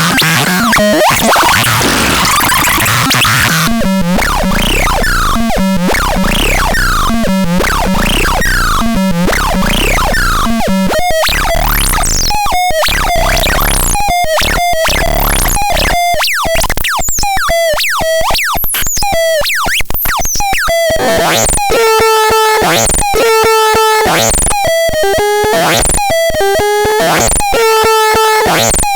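Electronic synthesizer sounds: a run of quick falling pitch sweeps, repeating about once a second. From about two-thirds in, this changes to a repeating pattern of short buzzy notes on a steady pitch.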